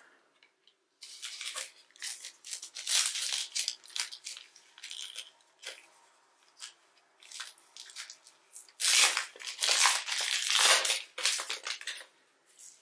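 Rustling and scraping from trading cards and their pack wrappers being handled and shuffled through, in two long spells, the louder one near the end.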